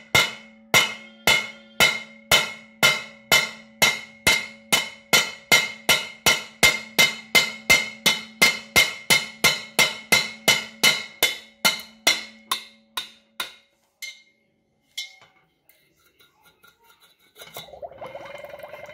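A thin screwdriver tapped against the base of an upturned ceramic bowl in a water-filled steel pot, chipping a drainage hole through the bowl. The taps come steadily, about two a second, and each one rings. They stop about two-thirds of the way in, leaving a few scattered ticks and some handling noise near the end.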